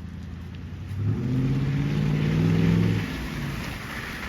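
Motor vehicle engine accelerating on a city street. A low engine note comes in about a second in, rises slightly in pitch for two seconds and then drops away, over steady traffic hiss.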